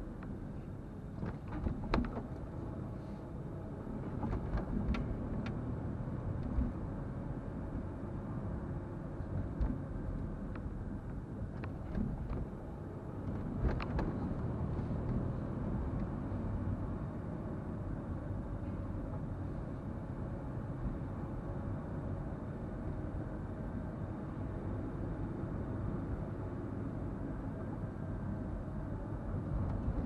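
Car driving along: a steady rumble of engine and tyres on the road. A few short clicks and knocks come in the first half.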